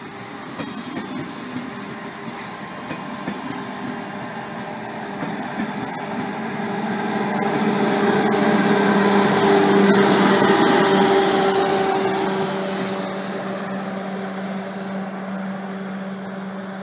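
Eurostar Class 373 high-speed electric train passing at speed, its rear power car going by about eight seconds in. A steady electric hum runs under a rushing noise that swells to its loudest about ten seconds in and then fades as the train moves away. Sharp wheel clicks over the rail come in the first few seconds.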